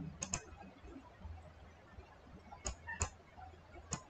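Computer mouse clicking: about five faint, sharp clicks, two in quick succession just after the start and the rest in the second half.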